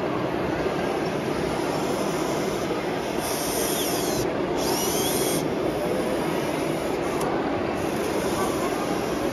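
Steady mechanical din of radio-controlled model construction machines at work, with a model truck's tipper trailer tipping up to dump its load of soil.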